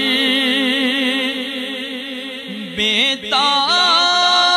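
A man singing an Urdu naat, drawing one long note out with a wavering vibrato. About three seconds in he breaks off briefly, then rises into a new held note.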